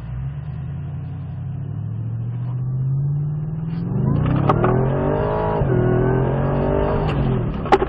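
Ford Raptor R's supercharged 5.2-litre V8 accelerating hard from a standstill. The engine note rises steadily in pitch, drops once about five and a half seconds in as it shifts up, then climbs again. A sharp knock comes near the end.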